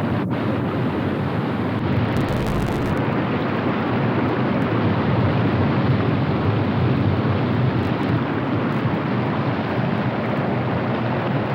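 Steady rushing of whitewater: a river pouring through rapids.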